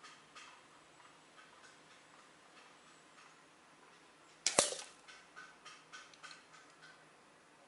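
A Hatsan Striker Edge break-barrel air rifle fires a single shot about four and a half seconds in: one sharp crack that rings briefly. Faint, steady ticking runs underneath, about three to four ticks a second.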